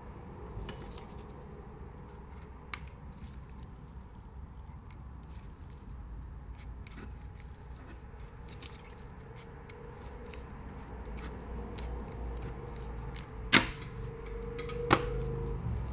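A rear main seal housing being worked by hand onto the back of an engine block over the crankshaft: light scraping and small clicks, then two sharp knocks about a second and a half apart near the end as it goes into place.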